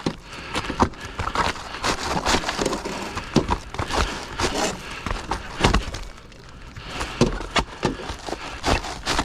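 Roof prep work: irregular sharp knocks, cracks and scraping from tools and materials being worked on the roof, with a strong knock about once a second and smaller clatter between.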